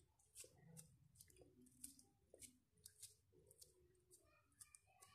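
Near silence, with faint irregular soft clicks and squishes of fingers pressing and molding minced meat onto a wooden skewer.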